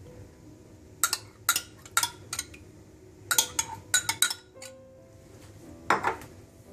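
A metal spoon clinking and scraping against a small glass cup and a white ceramic bowl as mayonnaise is spooned out into the bowl. The clinks come in short clusters, several a second, with a pause about two-thirds of the way through and one more clink near the end.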